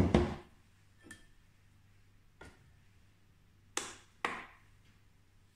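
A glass mixing bowl knocked down onto a plastic digital kitchen scale, a sharp knock and a quick second one right at the start, then lighter taps and two more glass knocks with a short ring about four seconds in as the bowl is handled on the scale.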